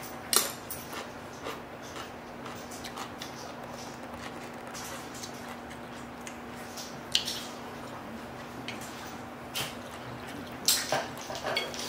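Close-up eating sounds: wet chewing and slurping of seafood soup, with scattered sharp clicks of utensils against the bowl, over a steady low hum.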